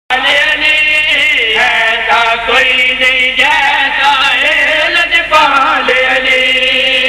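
A group of men chanting a devotional refrain in praise of Imam Ali in unison into a microphone, a steady, melodic religious recitation.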